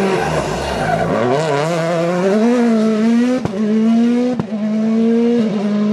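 A Hyundai i20 Coupe WRC rally car's turbocharged 1.6-litre four-cylinder engine drops in pitch as the car slows for a tight turn, then pulls away under hard acceleration with its note rising. Two sharp cracks sound at the upshifts, about three and a half and four and a half seconds in.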